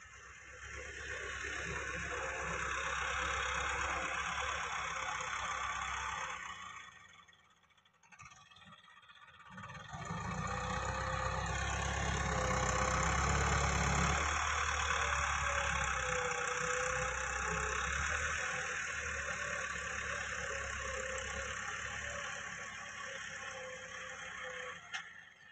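A farm tractor's diesel engine running under load as it drags a disc harrow through loose soil. The sound fades out for a couple of seconds about a third of the way in, then comes back louder and deeper.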